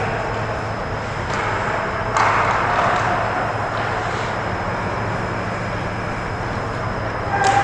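Ice hockey rink ambience: a steady low hum, with a skate scraping the ice about two seconds in and a sharp knock near the end.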